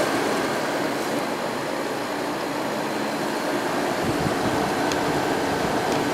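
Sharp 10,500 BTU window air conditioner heard from its outdoor side with the compressor and condenser fan running: a steady hum under a rush of air.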